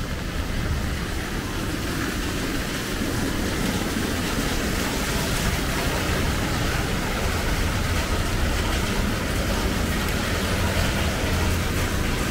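Heavy rain falling steadily, with a low rumble underneath that swells slightly after the first couple of seconds.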